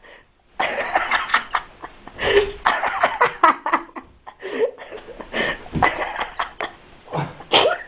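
People's voices: laughter and short, indistinct vocal sounds in a small room.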